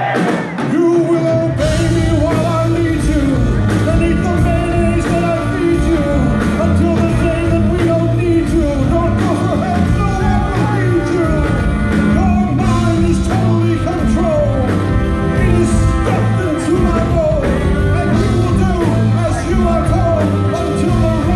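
Crowd cheering that fades as a live rock band with electric guitars, keyboards, bass and drums comes in about a second and a half in and plays on loud and full, heard from within the audience.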